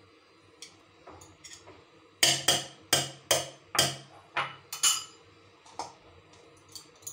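Kitchen utensils knocked together: a run of about eight sharp taps, roughly three a second, starting about two seconds in, after a few faint clicks.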